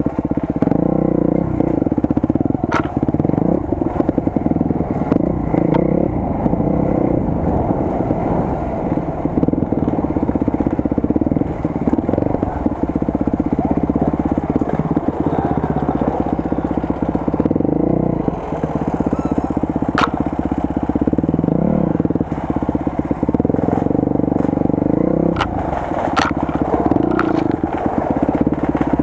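Enduro motorcycle engine running at low trail speed, heard from on board, its pitch rising and falling a little with the throttle. A few sharp knocks now and then, about three seconds in, two-thirds through and near the end.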